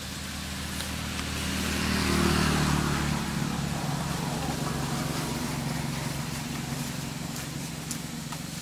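A motor vehicle's engine passing by, a steady low hum that swells to its loudest about two seconds in and then slowly fades.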